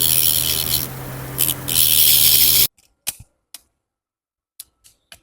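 Screwdriver working the tiny screws of an Oppo A54 phone, a scratchy grinding noise in bursts that cuts off abruptly about two and a half seconds in. A few small clicks follow.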